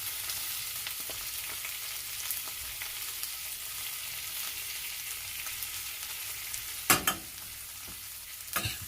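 Onion frying in hot olive oil in a saucepan: a steady sizzling hiss. There are a few sharp knocks about seven seconds in and again near the end.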